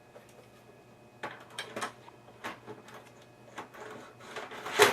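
Irregular clicks, knocks and scraping of a CD/DVD drive and its connectors being handled and fitted into a desktop computer case, starting about a second in, with the loudest knock near the end.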